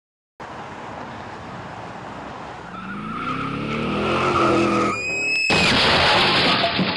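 Car engine revving up, rising in pitch, then a short high tyre squeal about five seconds in, followed by loud skidding noise.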